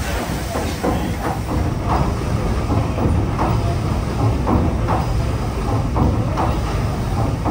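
Paddle steamer Waverley's three-cylinder triple-expansion steam engine and paddle wheels running under way: a steady low rumble with a regular beat about twice a second.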